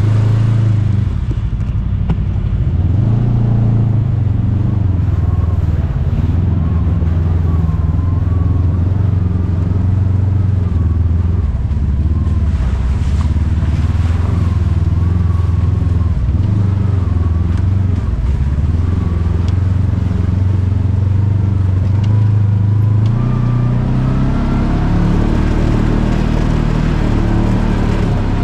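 Kawasaki KRX 1000 side-by-side's parallel-twin engine running steadily as the machine crawls along a rough dirt trail, with a faint whine over a low drone. The engine note shifts about three-quarters of the way through and starts to climb again near the end.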